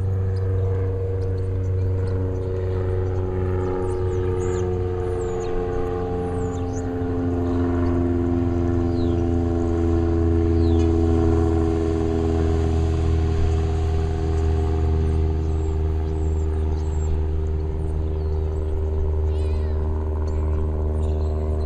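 A steady engine drone with a strong low hum, its pitch drifting slowly up and down, with birds chirping above it now and then.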